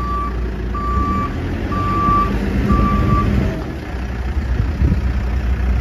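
Backup alarm of a Case 580 Super M loader backhoe, beeping about once a second with four beeps that stop a little past halfway, over the steady low running of its 95 hp Case diesel engine.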